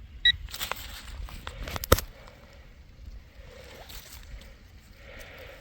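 A short electronic beep from a metal detector pinpointer, then scraping and clicking as dirt and the freshly dug find are handled, with one sharp click about two seconds in. The soft trickle of a creek runs underneath.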